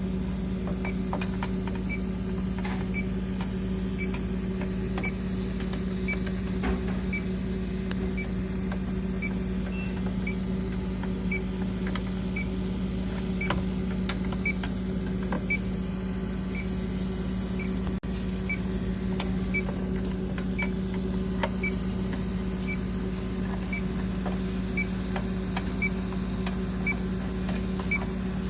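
Electronic refrigerant leak detector ticking at an even rate of about one short high beep a second, its rate not rising while it is searched over the fridge for an R134a leak. Under it runs a steady low hum, with a few faint clicks of handling.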